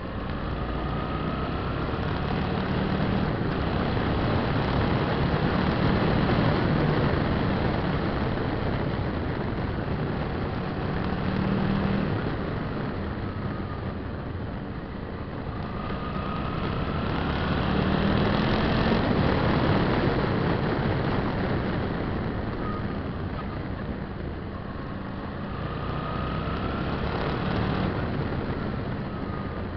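Suzuki V-Strom 650's V-twin engine running under way with wind rush, the engine note rising and falling about four times as the bike accelerates and eases off through the bends.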